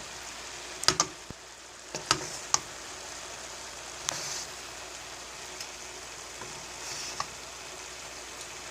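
Vegetable and meat filling for egg rolls sizzling in a frying pan as it is stirred, with a utensil clicking against the pan a few times.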